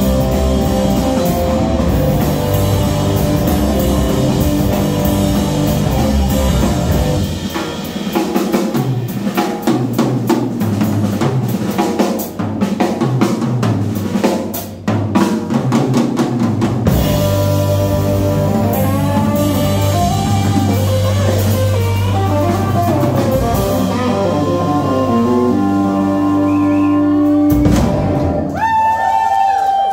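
Live blues-rock band of electric guitar, electric bass, drum kit and harmonica playing loudly. About 8 seconds in the bass drops away and the drums carry a busy stretch of snare and cymbal hits. About 17 seconds in, long held bass and guitar notes come back in.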